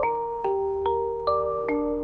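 Background music: a light melody on mallet percussion such as marimba or glockenspiel, a new ringing note struck about every half second.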